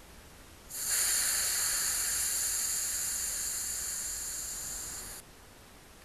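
Air hissing out of a bicycle inner tube as it is let down, for about four and a half seconds. It starts abruptly, slowly weakens and cuts off suddenly.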